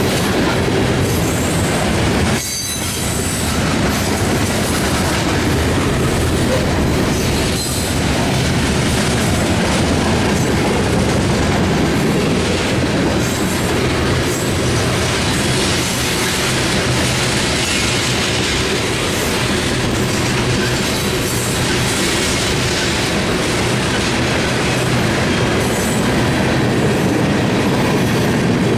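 Long mixed freight train rolling past at speed: a steady, loud rumble of steel wheels on rail, with a brief dip in loudness about two and a half seconds in.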